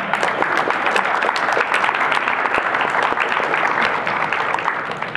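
Audience applauding: many hands clapping densely and steadily, thinning out near the end.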